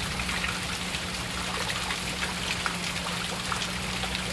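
Rainwater trickling and dripping steadily after a downpour, with many small drop ticks over an even wash of running water.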